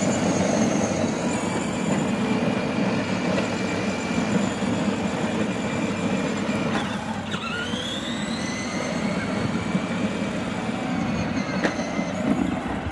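Children's battery-powered ride-on car driving on asphalt: a steady rolling rumble from its plastic wheels with a faint high electric-motor whine.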